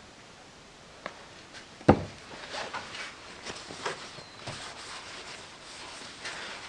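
A sharp knock about two seconds in, then repeated rubbing strokes of an oil-soaked paper shop towel wiped along a steel Land Rover axle half shaft, oiling its corroded surface.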